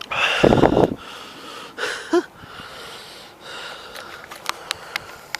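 A person sniffing hard close to the microphone, with a second shorter sniff about two seconds in, then a few sharp clicks near the end.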